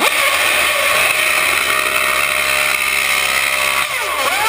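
McLaren Formula One car's engine running loud at high revs, with the pitch dropping and then rising again near the end as the revs come off and pick up.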